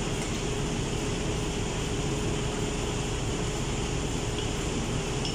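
Steady drone of running machinery and ventilation, with a faint steady hum in it. A couple of faint light ticks come near the end.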